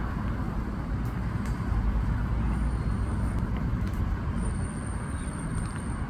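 Steady outdoor background rumble, strongest in the low end, with a faint, thin, high-pitched tone heard twice in the second half.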